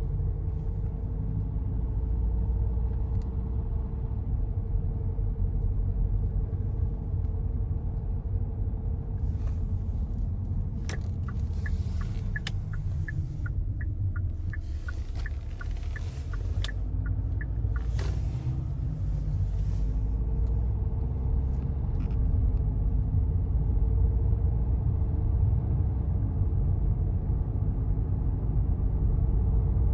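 Kia Sorento 2.2 four-cylinder diesel engine running with a steady low rumble. Midway, a run of light clicks repeats about three times a second for several seconds.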